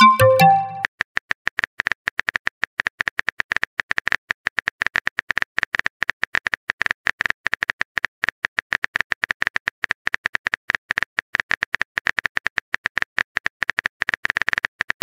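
Rapid, irregular keyboard-tap clicks of a texting app's typing sound effect, one per letter as a message is typed out. A short electronic chime of a few notes sounds at the very start.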